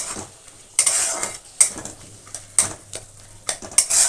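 A spatula stirring peas into frying spice masala in a kadai, scraping the pan in several irregular strokes over a faint sizzle.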